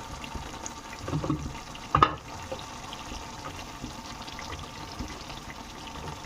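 Chicken gravy sizzling steadily in a hot pan, with scattered small crackles. A louder rush comes about a second in, then a single sharp knock.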